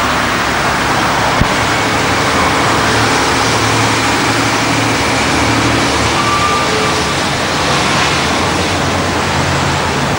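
Steady roar of distant motor vehicles: a low engine hum under a broad rushing noise, with one sharp click about a second and a half in.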